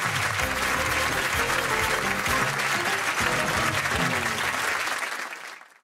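Studio audience applauding while a short piece of music with low, moving notes plays over it; both fade out to silence near the end.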